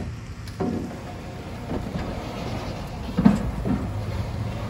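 A heavy pallet with its box being shifted about on a truck's metal liftgate as the pallet jack is pulled out from under it. A few knocks and scrapes, the loudest about three seconds in, over a steady low hum from the truck.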